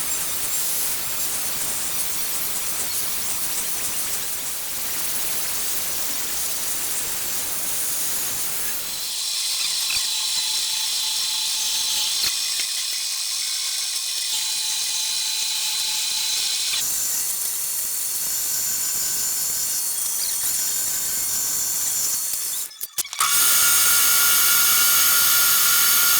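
A power tool running with a steady high-pitched whine and hiss, its pitch shifting as it works. It cuts out briefly near the end and comes back louder.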